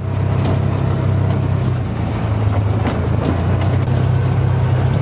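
Side-by-side utility vehicle running steadily as it drives, an even engine hum with rumble and rattle from the ride.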